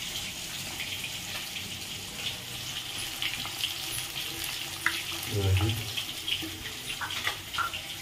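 Fish frying in hot oil in a kadhai: a steady sizzle with scattered crackles and pops, the pops more distinct in the last couple of seconds.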